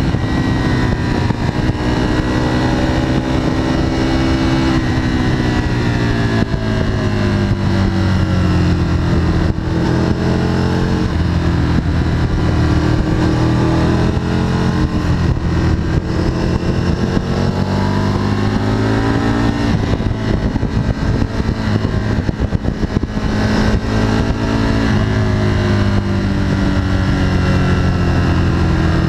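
Aprilia RSV sport motorcycle's engine heard from on board at speed, its pitch repeatedly rising as it accelerates and falling as it slows through the bends, over a steady rush of wind.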